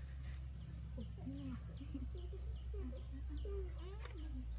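Birds chirping: short, high, falling chirps repeated about twice a second, with lower wavering calls beneath them, over a steady low hum.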